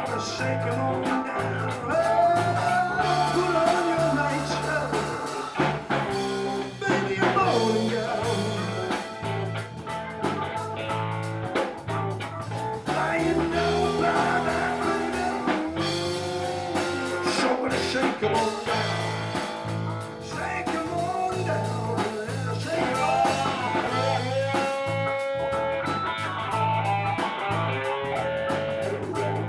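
Live blues-rock band playing an instrumental stretch, with an electric guitar leading in bending, held notes over drum kit, bass and keyboard.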